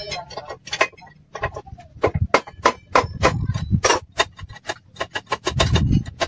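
A hand tool striking wood in quick, uneven knocks, about four a second, louder from about two seconds in.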